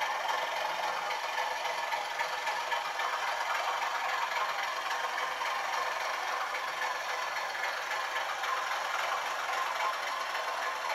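00-scale model locomotive running along the layout's track, giving a steady, even mechanical running noise.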